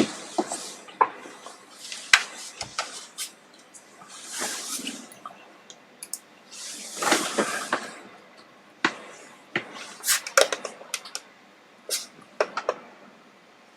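Short hissing blasts, each about a second long, come twice, around four and seven seconds in, among scattered sharp clicks and taps of small hard objects being handled on a workbench.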